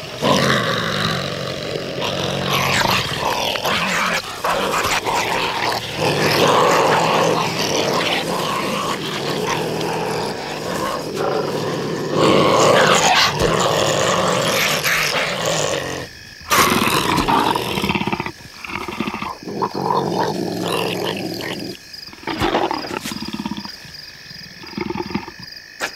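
A leopard and honey badgers fighting: loud growling and snarling, nearly continuous for about the first sixteen seconds, then breaking into shorter, separate outbursts.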